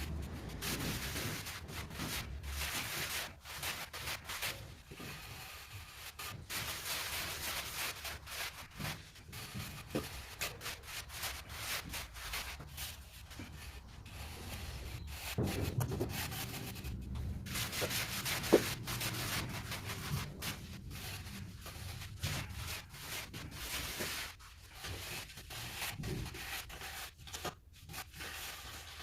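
Trowel scraping and smoothing a floor mortar bed in repeated uneven strokes, with one sharp knock about eighteen seconds in.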